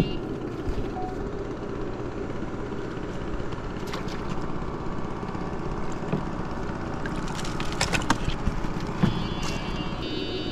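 A small motor running steadily, with a few sharp clicks and knocks about four seconds in and a cluster of them around eight seconds, and a short high electronic beeping near the end.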